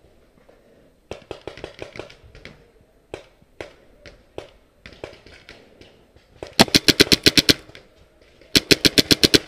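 Paintball marker firing in rapid strings of about ten shots a second: two loud volleys, one starting about six and a half seconds in and another near the end, with fainter scattered shots before them.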